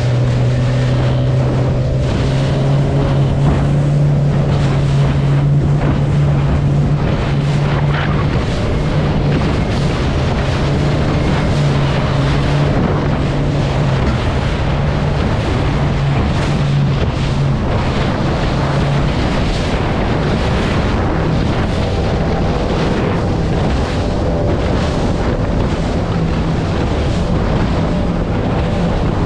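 Suzuki DF100 four-stroke outboard running under way at speed, a steady low engine hum over rushing water and spray along a fibreglass hull, with wind buffeting the microphone. The engine pitch shifts slightly about twenty seconds in.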